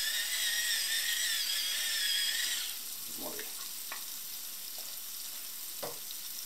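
A pepper mill grinding over the pan with a wavering whirr that stops about two and a half seconds in. After that, chopped onion and garlic fry gently in olive oil on low heat with a soft steady sizzle and a few light clicks.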